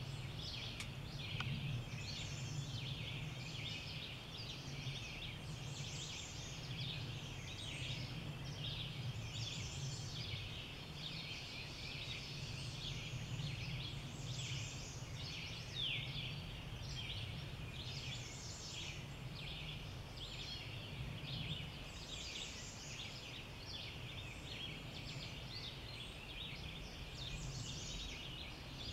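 Dawn chorus: many songbirds singing at once, a dense, unbroken mix of high chirps and trills, over a steady low hum.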